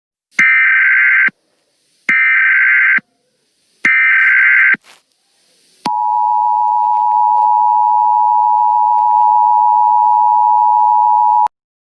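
Emergency Alert System tones: three short bursts of SAME header data, each about a second long, then the steady two-tone EAS attention signal held for about five and a half seconds before it cuts off suddenly.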